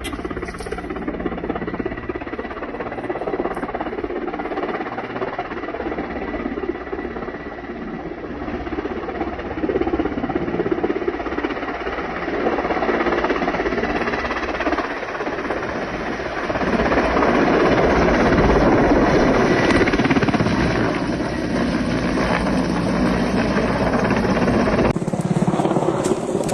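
Firefighting helicopter flying over the fire, a steady rotor and engine noise that grows louder about two-thirds of the way through.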